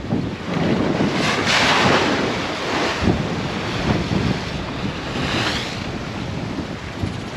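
Sailing yacht pushing through rough sea in strong wind: wind buffeting the microphone and waves rushing along the hull. There are two louder surges of spray, about a second and a half in and again around five seconds.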